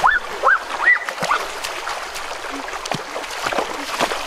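Water splashing and sloshing in a shallow stream as a person wades and pokes a long stick through it, over the steady run of the current. In the first second, four short calls from an unseen animal, each rising and falling in pitch, are the loudest sounds.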